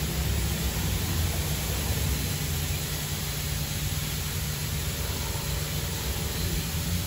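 Ryko Radius HT touchless car-wash arm spraying high-pressure water over a minivan, a steady hiss of spray with a steady low hum beneath.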